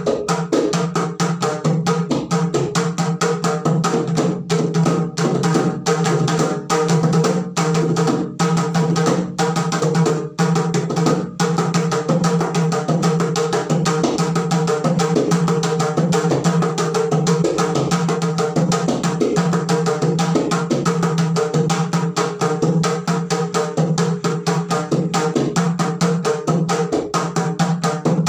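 Mridangam played solo with fast, continuous finger strokes on both heads, working through a mora and korvai pattern in Adi tala.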